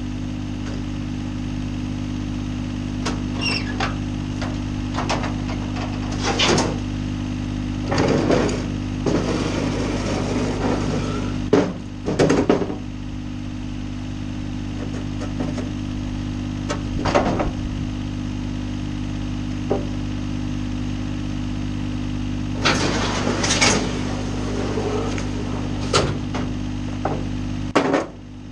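An engine idling steadily, with intermittent metallic clanks and scrapes as aluminium loading ramps are pulled out and hooked onto the back of a truck bed.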